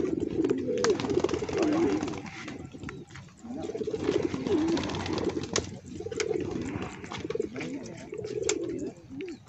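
Domestic pigeons cooing: a string of low, warbling coos one after another, with a few sharp clicks between them.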